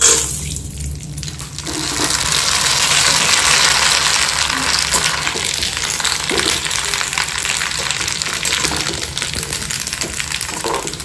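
Pipe papad (tube-shaped fryums) frying in hot oil in a kadai. The sizzle starts suddenly as they go in, grows louder about two seconds in, then holds steady.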